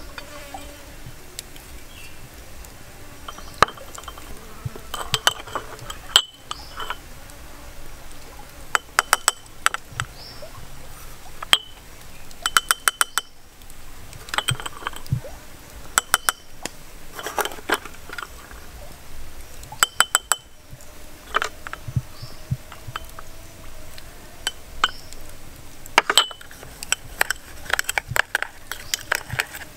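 A spoon clinking against small porcelain cups as seasonings are spooned in and a dipping sauce is mixed: short, bright clinks that ring briefly, in scattered groups. They come in a quick run near the end as the sauce is stirred in the cup.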